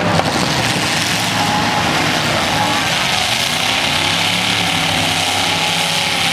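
Several V8 demolition derby car engines running and revving, their pitch rising and falling, over a steady hiss.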